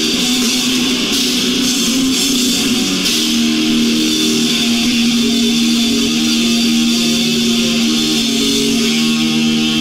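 Heavy metal music led by electric guitars; about three seconds in the guitars settle on a long held chord.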